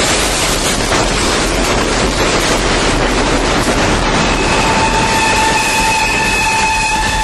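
Freight train rolling past close by: a loud, even rush of wheel and rail noise as the diesel locomotive and freight boxcars go by. A steady high-pitched tone joins it about four seconds in.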